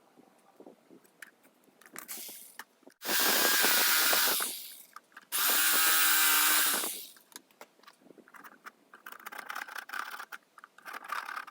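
A power tool's motor switched on and run in two short bursts of about a second and a half each, with a steady motor whine in the second burst. Lighter intermittent scraping and clattering follow in the last few seconds.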